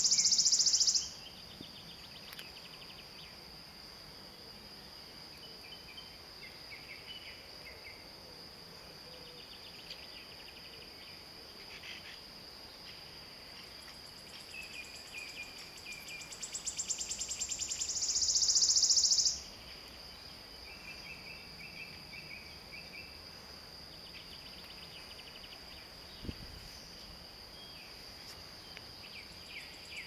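Wood warbler singing: the end of one song's shivering trill about a second in, then a full song of quickening notes that speed up into a loud trill and cut off near the end of the middle third. A steady high whine runs underneath throughout.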